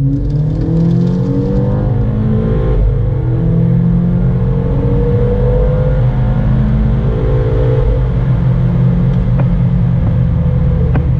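VW Golf V GTI's turbocharged 2.0-litre four-cylinder accelerating at full throttle after a kickdown, heard from inside the cabin. The revs climb, fall at an automatic DSG upshift about three seconds in, climb again, and fall at a second upshift about eight seconds in before climbing once more.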